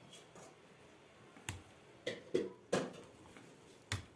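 About five sharp clicks and taps at uneven intervals, small hand tools and metal parts being handled while a chainsaw is taken apart.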